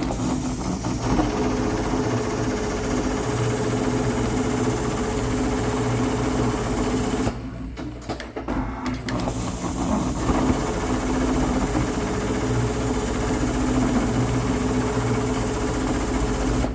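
Dürkopp Adler 911-210-6055 CNC pattern sewing machine sewing lockstitch at steady speed with its 867 head. It stops for about two seconds partway through, then resumes sewing.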